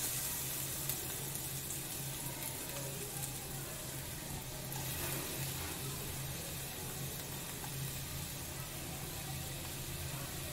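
Chopped onion frying in hot oil in a nonstick kadai: a steady, even sizzle, with a low steady hum underneath.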